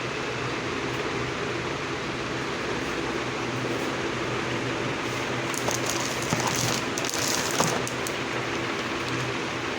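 Steady room hum and hiss, with a few brief rustles and clicks a little past halfway.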